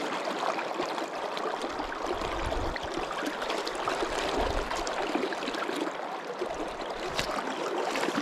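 Steady rushing wash of a shallow stream riffle, with a few brief low rumbles.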